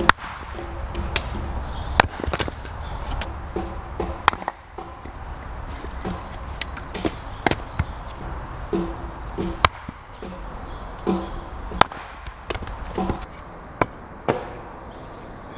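Hatchet blows splitting a log into kindling on a chopping block: a dozen or so sharp wooden chops, irregularly spaced a second or so apart.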